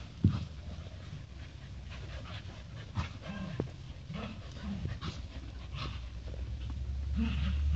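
A group of doodle dogs playing together, panting, with scattered short vocal noises and a brief sharp sound about a quarter second in. A low hum builds near the end.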